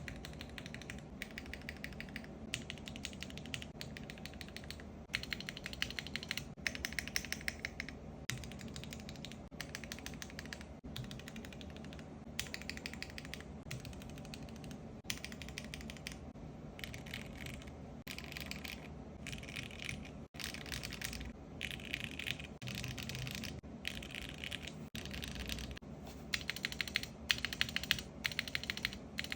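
Typing on a 65% mechanical keyboard: runs of rapid keystrokes in bursts of a second or two, with short pauses between them.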